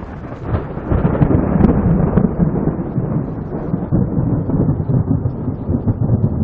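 Thunder rumbling from an overhead tropical storm, swelling about a second in into a long, loud rolling rumble.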